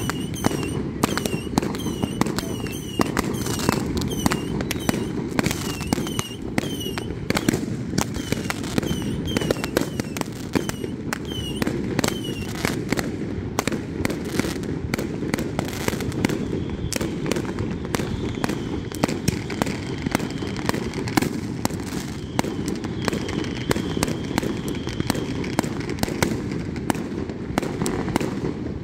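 Many fireworks and firecrackers going off at once: a dense, continuous crackle of sharp bangs several times a second over a steady low rumble of distant bursts. Short falling whistles repeat through roughly the first half.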